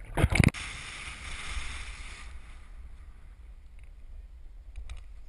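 Water splashing and sloshing around an underwater action camera for half a second, then a cut to a steady low rumble of wind and water rushing past the camera's waterproof housing as a kiteboard rides across the water, with a hiss that fades after about two seconds.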